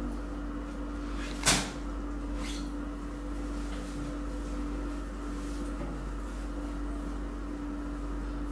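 A heavy counterweight being handled and fitted onto the laser machine's light-guide arm: one sharp knock about one and a half seconds in and a fainter one a second later, over a steady low hum.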